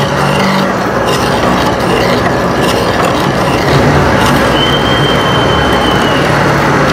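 Experimental electronic noise music: a dense, loud wash of harsh noise, with a thin steady high whistle held for about a second and a half past the middle.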